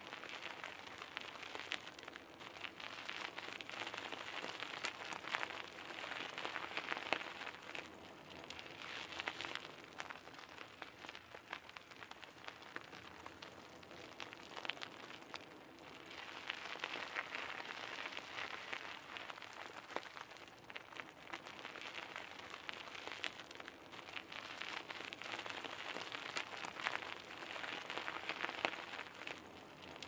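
Bicycle tyres rolling over a gravel path: a steady crunching crackle of small stones with many tiny clicks, swelling and easing every few seconds.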